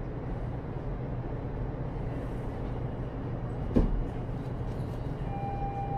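Steady hum and noise inside a stationary Keikyu 1500-series commuter train car standing with its doors open at a platform. There is one thump about four seconds in, and a steady tone starts about five seconds in.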